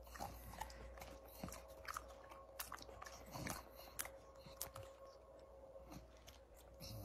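A bulldog's faint, irregular mouth clicks and smacks, as in chewing.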